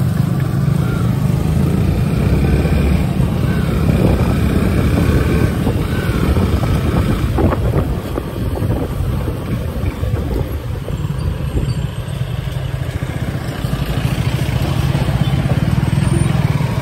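Yamaha FZ single-cylinder motorcycle engine running as the bike rides through town traffic, with a steady low rumble; it slows almost to a stop near the end.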